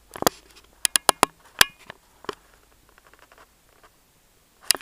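Handling noise: sharp clicks and light knocks as a metal dummy shell is gripped and turned close to the microphone, several in the first couple of seconds and two more near the end.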